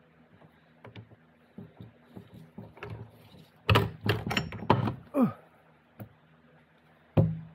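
Metal clunks and knocks as the output shaft and planetary gear set of a New Process 242 transfer case are worked out of the aluminium case, with a burst of them about halfway through, then a single sharp knock as the assembly is set down.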